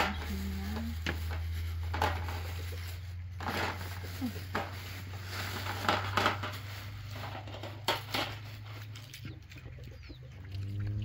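Handling sounds: plastic bags rustling and a metal tray and plastic basket knocking as they are set down on a tiled floor, a dozen or so short clicks and knocks. A hen clucks briefly near the start, over a steady low hum.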